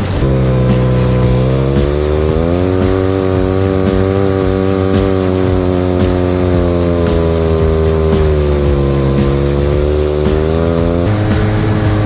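Side-by-side UTV engine running under way, rising in pitch about two seconds in, holding steady, then dropping back before cutting off near the end. Background music plays underneath.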